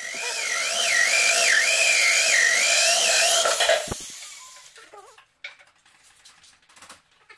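Handheld electric drill boring into a stone slab: a high-pitched whine over a hiss, its pitch wavering as the bit loads up, cutting off just before four seconds in. Faint clicks and knocks follow.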